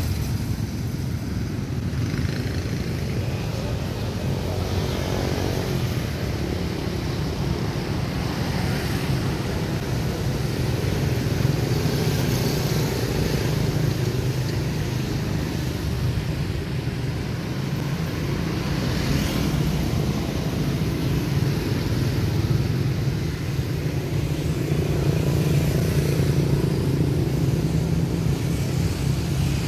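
Steady motor traffic noise: a constant low engine hum, with vehicles swelling past now and then.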